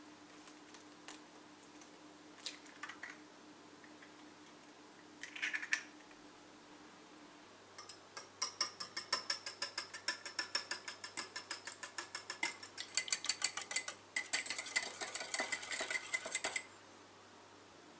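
A wire whisk beating an egg in a ceramic ramekin, its metal tines clicking rapidly against the bowl at about five strokes a second, growing denser before stopping near the end. A few light taps come first.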